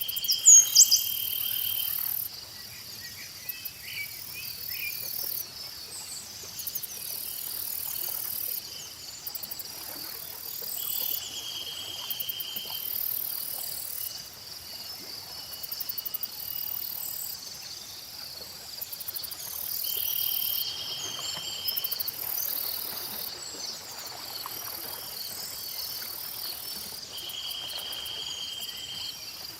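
Insects and crickets chirring steadily, with a very high buzz that comes and goes every few seconds and a two-second trill that recurs about every nine seconds. A bird chirps a few times about half a second in.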